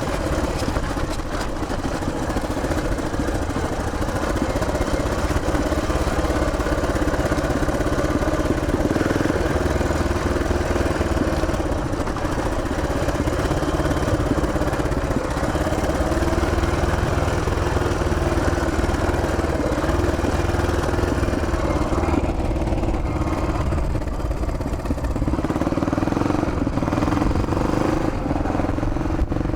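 1981 Yamaha XT500's air-cooled four-stroke single-cylinder engine running steadily while riding on a dirt track. Its note sags about three-quarters of the way through, then climbs again as the throttle opens.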